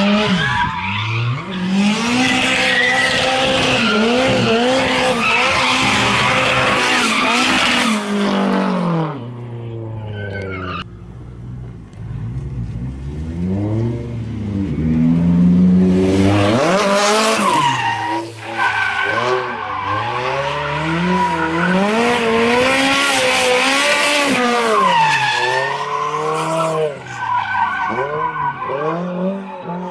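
Toyota AE86 Trueno's four-cylinder engine revving up and down again and again, with tyres squealing as the car is swung side to side in a manji drift. Engine and tyres ease off for a few seconds about a third of the way in, then pick up again.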